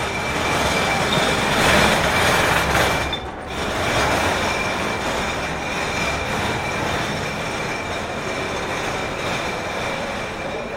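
New York City subway train running through an underground station: a loud dense rumble with a steady high squeal from the wheels, briefly dipping about three seconds in.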